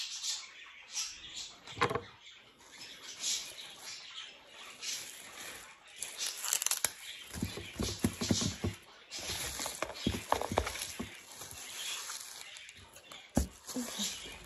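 Leafy greens, romaine lettuce and curly kale, handled and torn by hand: irregular rustling and crunchy crackling, with a sharp knock about two seconds in and another near the end.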